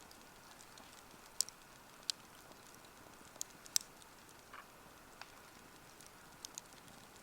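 Wood fire crackling: scattered sharp pops and snaps at irregular intervals over a faint steady hiss.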